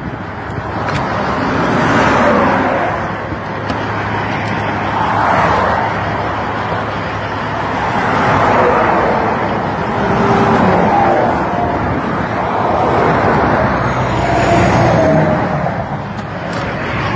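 Road traffic passing close by: vehicles swell and fade about five times, each over two or three seconds, over a steady low hum.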